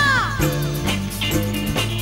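Live band music from a Bollywood song: a woman's long held sung note slides down and ends at the start, then drums and a bass line carry the beat in a short instrumental gap.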